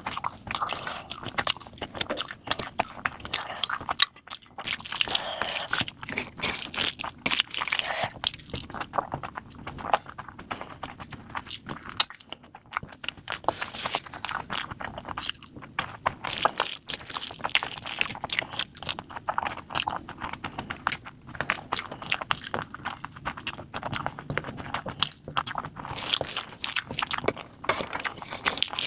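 Close-miked eating sounds: wet chewing, smacking and crunchy bites of egg curry with rice, in quick irregular clicks and crackles.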